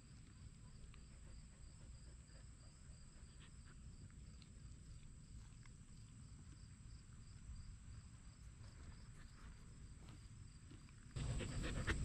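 Faint outdoor background of insects chirping in an even, repeating rhythm over a low steady rumble. About a second before the end the sound turns much louder, with close wet clicks and smacks from a husky licking and sniffing at a watermelon half right by the microphone.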